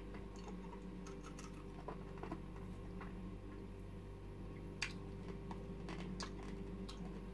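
Faint, scattered clicks and taps over a steady low hum.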